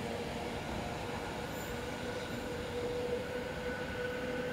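Electric multiple-unit train running away along the track, with a steady rumble and a steady electric whine; a second, higher whine joins about a second and a half in.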